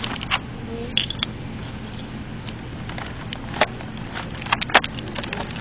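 Clear plastic packaging of a model airliner being handled, giving scattered sharp clicks and crackles with a quick cluster of them near the end, over a steady low background hum.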